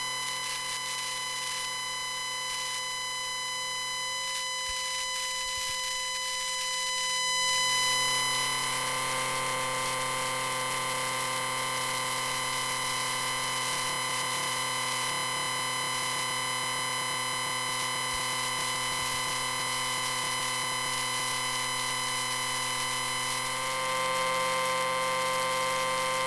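Tesla coil electrical sound effect: a steady electric buzz and hiss with a fixed, many-toned hum. It grows louder about eight seconds in and rises slightly again near the end.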